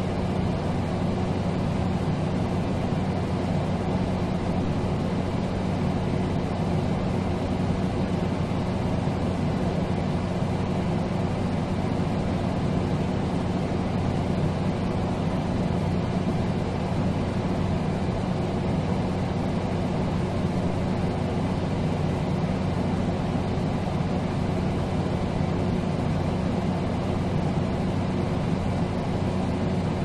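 Air conditioner running steadily: an even rush of fan air over a constant low hum.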